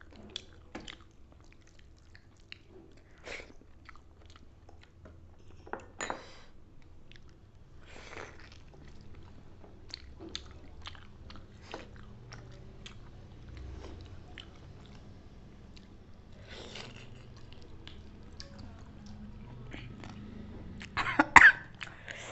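Close-miked chewing and biting while eating roast chicken and rice, with scattered small mouth clicks and smacks. Near the end come two loud coughs as food goes down the wrong way.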